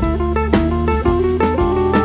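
Background music: a blues-style guitar tune over bass and a drum beat.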